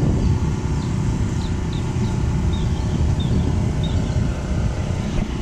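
Steady low outdoor rumble, with a few short, high chirps from birds scattered through it.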